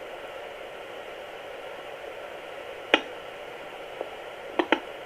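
Handheld fetal Doppler's speaker hissing steadily with static as its probe slides through gel on the belly, with a sharp crackling pop about three seconds in and a quick pair near the end. No heartbeat comes through.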